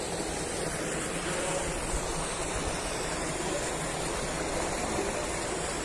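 Steady rush of water running into the stone basin of an old masonry dam reservoir.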